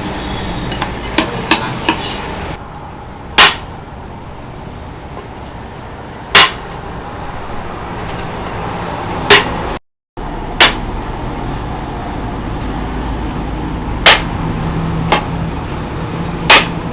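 Hammer blows on metal: a few light, quick taps at the start, then single hard, ringing strikes about three seconds apart, over a steady low hum.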